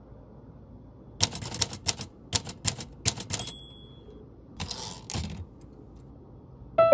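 Metal drafting compass with a clip-on pencil being handled and set on paper: a quick run of sharp clicks and taps, one leaving a short metallic ring, then a brief scratchy rustle.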